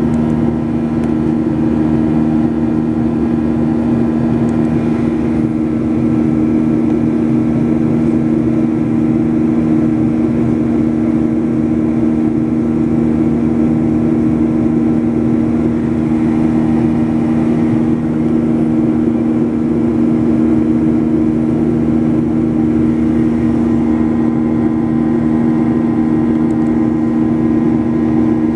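Boeing 737 cabin noise in flight: the jet engines and airflow make a steady, loud drone with two strong low humming tones, unchanging throughout.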